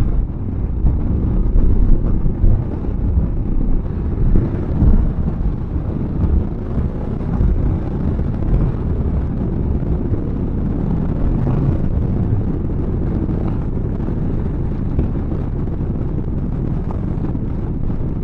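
Motorcycle engine running at road speed, with wind rumbling over the microphone. The sound swells and dips unevenly for the first few seconds, then settles steady.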